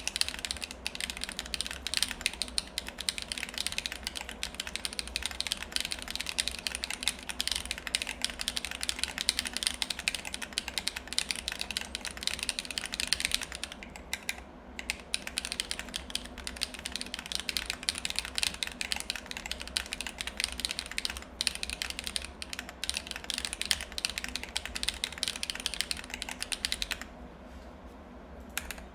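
Steady typing on a MechVault Vault35 mechanical keyboard with factory-lubed HMX Cheese switches, an ABS plate and DSS keycaps: a dense run of keystroke clacks, with a short pause about halfway and a stop near the end.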